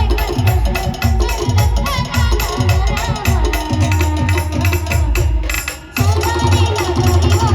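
A live band plays a Marathi song, with heavy drum beats under a melody line. About five and a half seconds in the music thins out briefly, then the full band comes back in at once.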